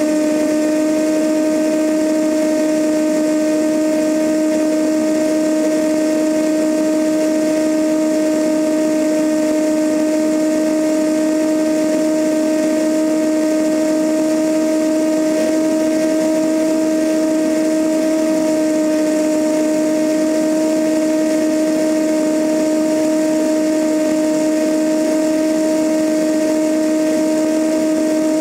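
A Cessna 172N's four-cylinder Lycoming engine and propeller droning steadily in cruise flight, with a two-note hum and a hiss of rushing air over the externally mounted camera.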